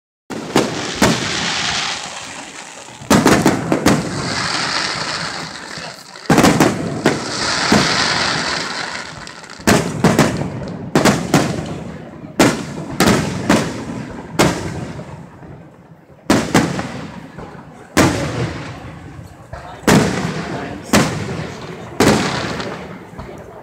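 Aerial firework shells bursting overhead in quick succession: a string of sharp booms about a second apart, each fading out over a second or so.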